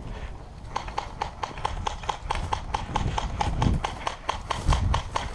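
Airsoft guns firing: a fast, even series of sharp shots, about five a second, starting just under a second in, over low wind rumble on the microphone.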